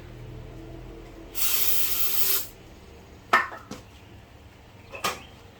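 Aerosol can of starting fluid sprayed in one hissing burst of about a second into the intake of a generator engine that won't start, followed by two sharp clicks.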